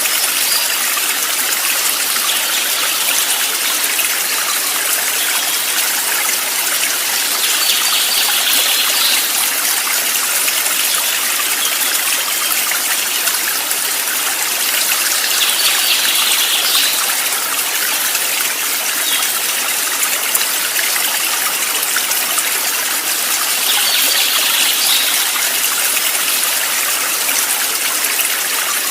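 A stream running steadily, an even rush of flowing water, with a brief brighter swell in the upper range about every eight seconds, three times.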